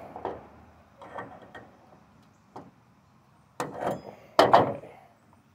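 Metal chandelier parts being handled and twisted by hand, knocking and scraping together: a few light clicks, then two louder rattling clatters about three and a half and four and a half seconds in.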